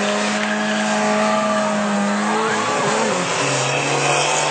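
Car engines running hard at high revs as two cars race side by side. The engine note holds a steady pitch, then drops lower about three seconds in.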